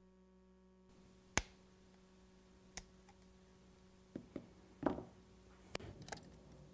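Small metal clicks and taps of a carburetor's throttle-linkage rods and spring clips being snapped back into place with pliers and fingers. There are single sharp clicks about a second and a half and about three seconds in, then a quick cluster of clicks and taps near the end, over a faint steady hum.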